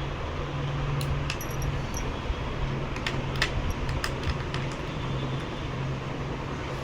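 Small, sharp metallic clicks and taps of a screwdriver and screws, scattered through the middle of the stretch, while a laptop's CPU fan and heat sink are unscrewed; a steady low hum runs underneath.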